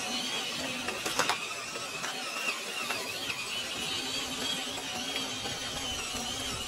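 A 1/10-scale RC car's motor and gear train whining as it drives off-road, the pitch wavering with the throttle, with a sharp click about a second in.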